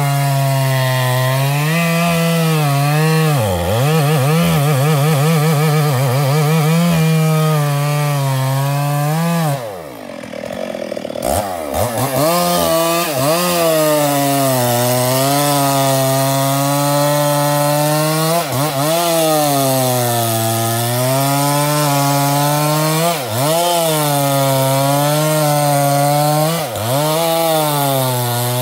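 Two-stroke chainsaw cutting into the soft wood of a kapok trunk, its engine pitch rising and dipping as the chain bites under load. About ten seconds in the sound falls away briefly, then the saw runs and cuts again, with a few short dips later.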